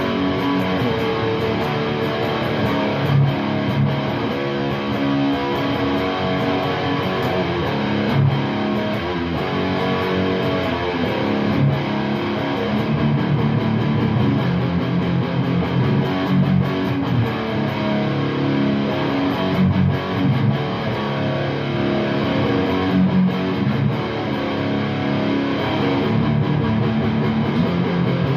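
Electric guitar played through an Orange Super Crush 100 amplifier on its dirty channel: distorted chords and riffs, played without a break, with a fresh attack every few seconds.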